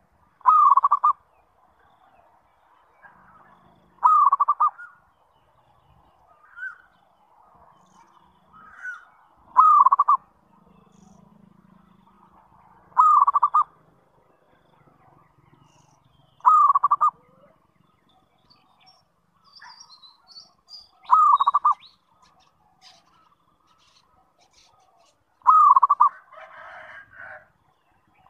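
Zebra dove (perkutut) cooing: a short, loud phrase of quick cooing notes repeated seven times, every three to five seconds.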